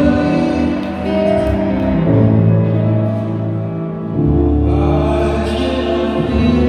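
Ice dance free-dance program music playing over an ice rink's sound system: a slow piece of long held notes whose chords change every second or two.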